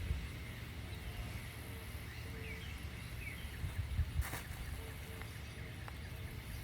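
Outdoor pond-side ambience: a steady low rumble, a few short bird chirps a couple of seconds in, and a sharp click a little after four seconds in.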